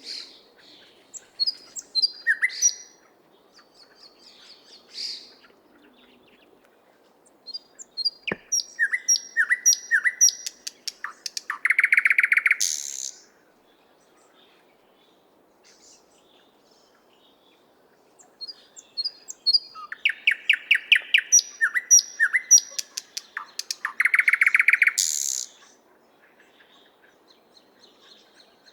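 Thrush nightingale singing: after a few short fragments, two long song phrases separated by a pause of several seconds. Each is a run of repeated whistled notes and rapid clicks that builds into a loud, dry rattle, and another phrase begins near the end. A faint low hum lies underneath.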